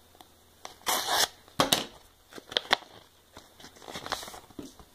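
Paper envelope being slit open, a short tearing rasp about a second in, followed by a few sharp clicks and then paper rustling as the folded contents are slid out.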